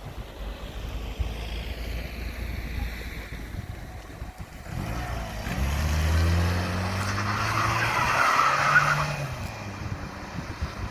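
A car accelerating hard with its tyres squealing: after a low steady rumble, the engine note climbs from about halfway through and the tyre squeal is loudest a few seconds later before easing off.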